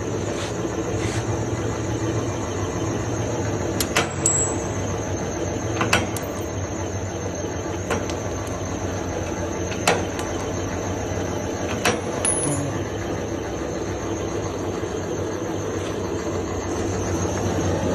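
Rebar cutting machine running with a steady motor and gearbox hum. From about four seconds in, a sharp snap comes roughly every two seconds as the blade shears off a short length of thin rebar.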